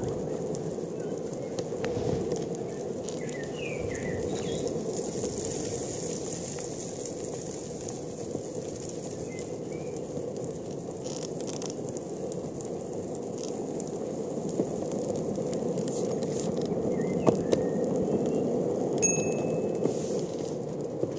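Longboard wheels rolling steadily along an asphalt lane, a continuous rumble, with a couple of sharp clicks late on.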